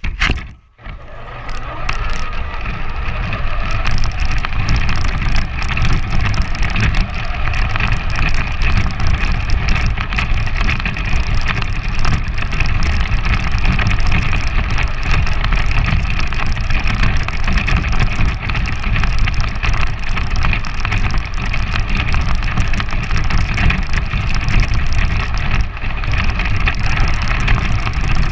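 Large electric RC 4x4 truck heard from on board: the motor and gears whine steadily over the rattle of the chassis and the crunch of the tyres on packed snow and slush. It builds up to speed over the first few seconds, then runs on steadily.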